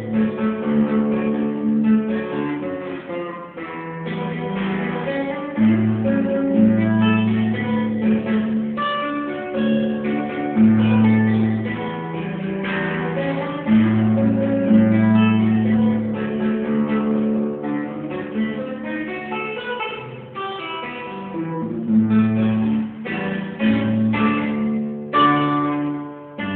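Acoustic guitar playing an instrumental piece: quick plucked melody notes over held bass notes.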